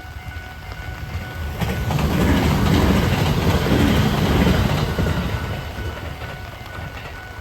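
A train passing over a level crossing: its rumble and wheel clatter swell about two seconds in, hold for a few seconds, then fade away. Through it the crossing's warning bell keeps sounding with thin steady tones.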